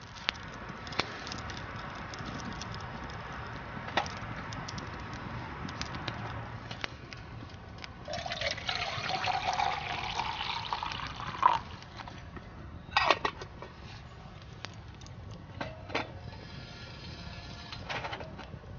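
Water poured from a steel bottle into a small camping pot, rising in pitch as the pot fills for about three seconds. Before it, a wood fire crackles in a small metal stove; after it come a few sharp clanks.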